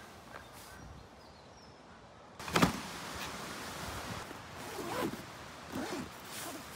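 Handling of a nylon daypack: a sudden thump about two and a half seconds in, then fabric rustling and a zipper being pulled open in short strokes.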